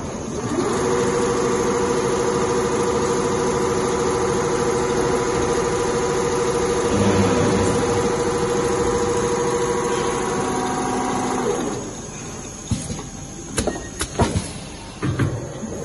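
Richpeace two-head CNC leather sewing machine running: a steady hum from both sewing heads stitching at speed. The hum stops about twelve seconds in and is followed by a few sharp clicks and knocks.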